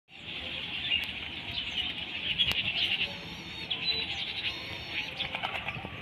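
Steady high chirping and twittering of birds, with a couple of light knocks about one and two and a half seconds in.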